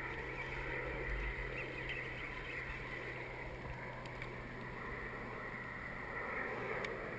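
Water sloshing and splashing around a kayak hull as a hooked largemouth bass is fought and thrashes at the surface beside the boat.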